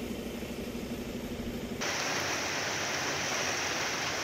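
An engine idling with a low steady hum, then, about two seconds in, an abrupt switch to a steady rushing hiss.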